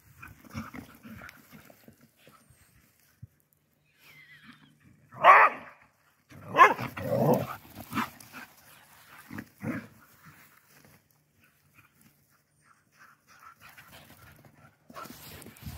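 Two Galgo Español dogs playing rough, giving a few loud, short dog vocalisations in the middle, a sharp one about five seconds in and longer growl-like ones just after, between quieter stretches.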